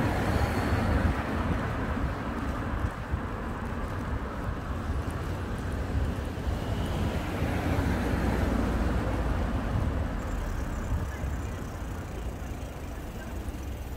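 Wind rushing over a bicycle-mounted microphone while riding, mixed with car traffic on the road ahead: a steady low rumble.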